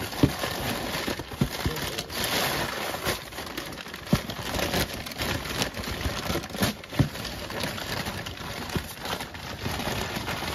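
A cardboard Priority Mail shipping box being handled and unpacked: continuous crinkling and rustling with many scattered light knocks and taps.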